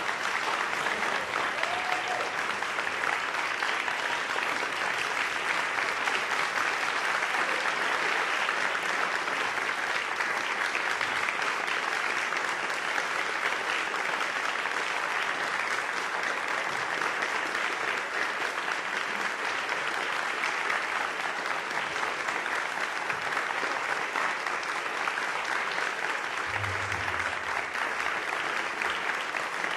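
Concert audience applauding steadily, dense clapping with no pauses.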